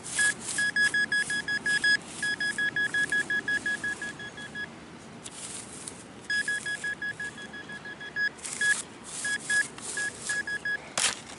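Handheld metal-detecting pinpointer beeping rapidly at one steady pitch, about eight beeps a second, in several runs that stop and start as it is moved over and off a buried target, with short scraping noises between the runs.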